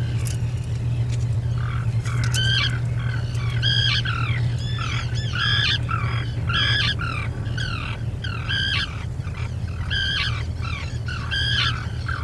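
Seabirds calling over and over, short harsh notes with a falling end, one every second or so. Beneath them runs a steady low hum.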